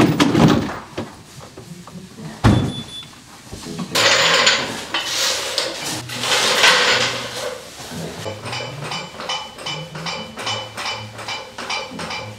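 Clattering and knocks from a steel floor jack being handled and pumped, with a sharp knock a few seconds in. About eight seconds in, background music with a steady beat takes over.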